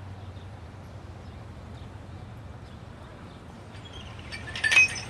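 Steady low background hum, then near the end a glass shop door is pushed open with a sharp rattling clatter and a brief ringing tone.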